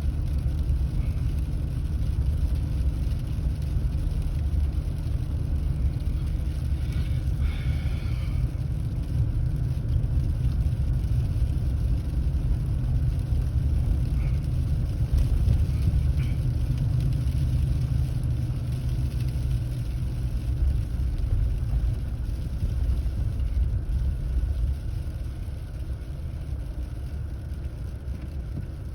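Inside a car driving on a snowy road: a steady low rumble of engine and tyres, easing a little about 25 seconds in.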